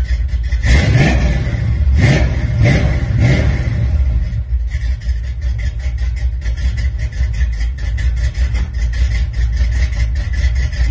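Chevrolet 350 small-block V8 revved in about four quick blips over the first few seconds, then settling into a steady, pulsing idle.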